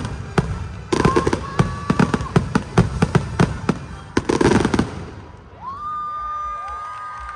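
Fireworks going off in rapid bangs and crackles that stop about five seconds in. A long steady high tone follows, with voices rising under it as the crowd starts to cheer.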